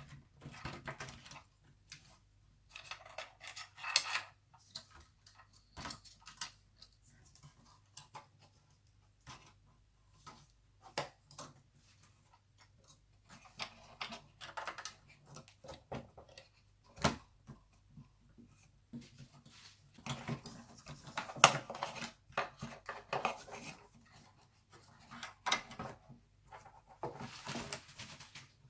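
Hands fitting a laptop motherboard into its plastic and metal chassis: irregular sharp clicks and light knocks of parts meeting, with several short stretches of rustling and scraping.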